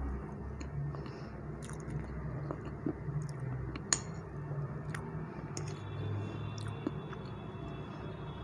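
Close-miked chewing of soft, creamy black forest cake, moist and squishy. Just before four seconds in a metal fork clicks sharply against a ceramic plate as the next bite is cut, with a few fainter clicks around it.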